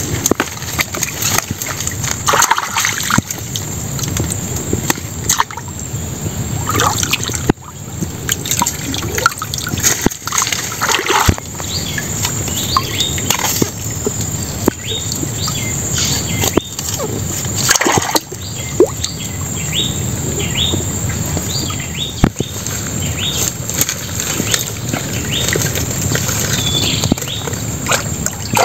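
Shallow water sloshing and splashing as bamboo-and-net fish and crab traps are handled and lifted in it, with sharp knocks from the trap frames now and then.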